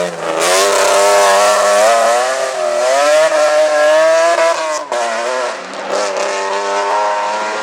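Rally car engine running hard under throttle, its pitch wavering up and down, with a short break in the engine sound just before five seconds in, after which it pulls on again.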